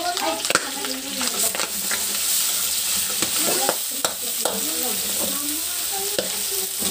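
Sliced pork frying in hot oil in a metal wok, sizzling steadily while it is stirred, with sharp scrapes and knocks against the wok. The pork is being browned to golden.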